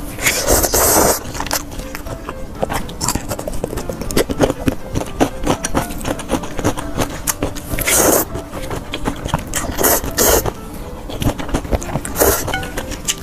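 Close-miked slurping of spicy instant noodles: four long slurps, at the start, about eight, ten and twelve seconds in, with chewing and small clicks of chopsticks between them.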